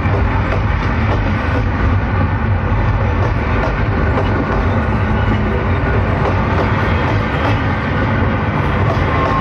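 Loud, steady rumbling noise with no separate bangs or pops.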